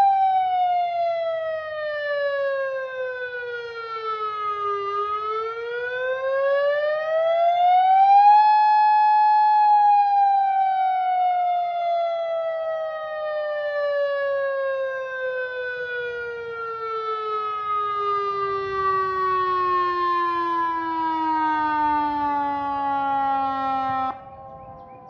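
Federal Signal RF100 outdoor warning siren sounding its wail. The pitch falls, climbs back up over a few seconds and holds briefly, then glides slowly down for about fourteen seconds before cutting off abruptly near the end.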